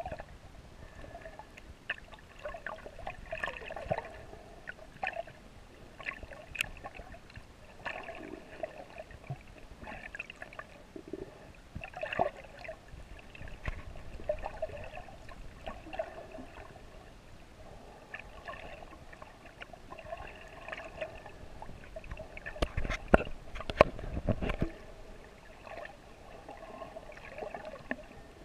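Water sloshing and gurgling, muffled as heard through a GoPro's waterproof housing while snorkeling, with scattered clicks and a few louder knocks near the end.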